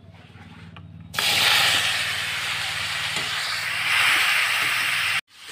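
Chopped vegetables (brinjal, potato and green beans) tipped into hot oil in a kadhai, starting a loud sizzle about a second in that runs steadily and cuts off suddenly near the end.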